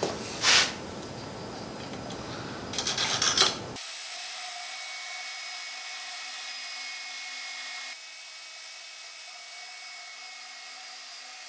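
A few seconds of scraping and handling noise on steel angle iron. About four seconds in, a portable bandsaw starts cutting the angle iron with a steady whine made of several high tones, dropping slightly in level about eight seconds in.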